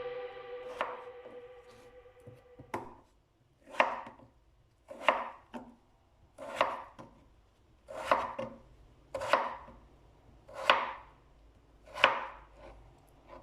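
A kitchen knife cutting food on a cutting board: a slow, even series of about seven cuts, one a little over every second.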